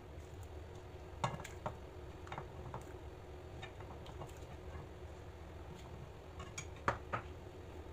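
Light clinks and taps of a steel ladle against the pan and serving bowl as dal is ladled out, about ten scattered ticks, over a low steady hum.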